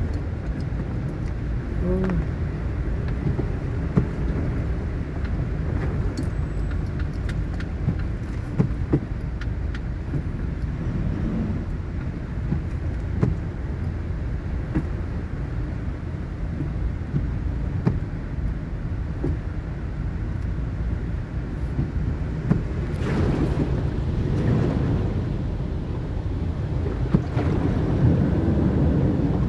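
Car driving slowly through flood water, heard from inside the cabin: a steady low rumble of engine and tyres in water, with scattered small clicks. A louder rushing wash of noise swells about 23 seconds in and again near the end.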